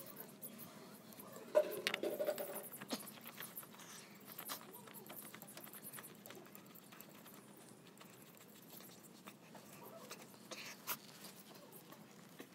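Small clicks, scrapes and rubbing as a spin-on oil filter is handled and screwed on by hand to a tractor engine. The loudest moment is a short scrape with a brief squeak about two seconds in.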